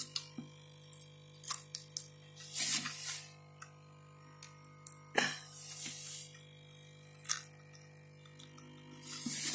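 Irregular sharp clicks and short crackling scrapes of plastic as the glued scanner slab of a Morpho slap fingerprint scanner is pried and pulled out of its housing, the glue bond giving way.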